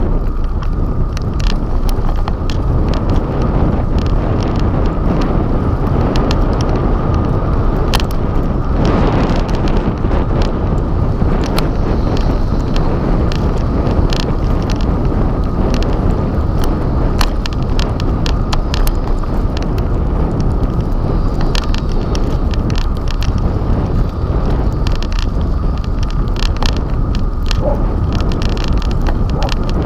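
Bicycle riding along a cracked asphalt street: steady wind on the microphone and road rumble, with frequent small clicks and rattles from bumps.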